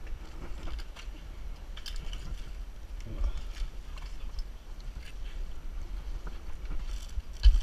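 Climbing gear scraping and knocking against a Washingtonia palm trunk as an arborist climbs it on a rope flipline: scattered sharp clicks and scuffs over a low rumble from the body-worn camera being jostled, with a louder knock near the end.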